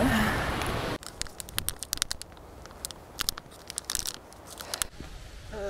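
Someone eating a snack bar: a run of sharp, irregular crinkles and crunches from the wrapper and the bites, starting about a second in.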